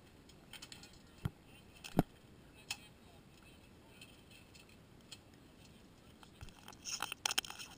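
Sparse clicks and knocks as the fishing leader and the camera housing rigged on it are handled on deck to unhook a golden tilefish. The loudest knock comes about two seconds in, and a quick run of clinking clicks comes near the end.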